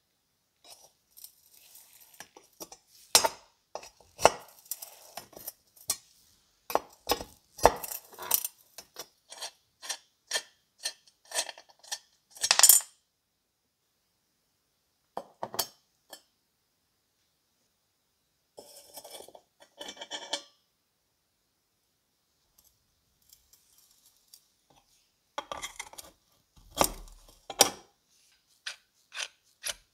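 Light metallic clicks and clinks of a small open-end wrench working brass nuts loose on the terminal posts of a rusty steel hotplate ring. They come in irregular bursts with quiet gaps between, and a short scraping stretch comes about two-thirds of the way in.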